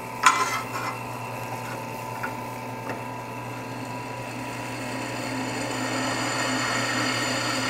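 Drill press motor running steadily, with a clack just after the start as a steel piece is set on the table. From about halfway the freshly resharpened twist bit starts cutting into mild steel, and the sound grows gradually louder and brighter; the bit cuts very nicely.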